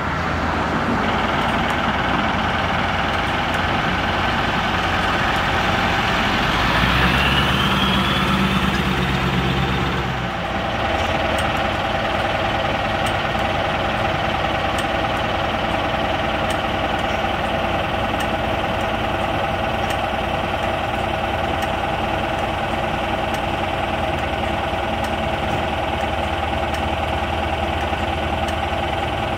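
Heavy-haulage truck's diesel engine idling steadily with a clattering note, with a louder, deeper stretch about seven to ten seconds in.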